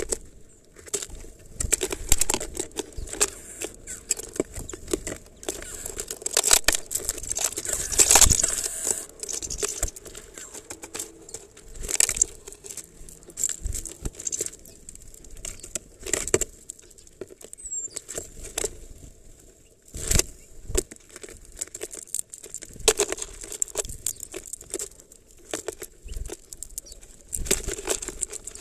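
Sparrows pecking and rummaging in sunflower seeds in a plastic-bottle feeder: irregular clusters of sharp clicks and rustling of seeds and husks against the plastic, with wing flutters as birds come and go.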